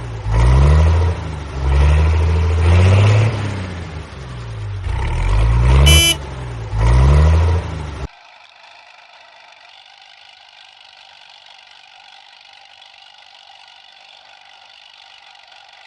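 Vehicle engine sound effects, the pitch revving up and down about once a second, with a short horn toot about six seconds in. About eight seconds in this cuts off and gives way to a quieter steady hiss with faint tones.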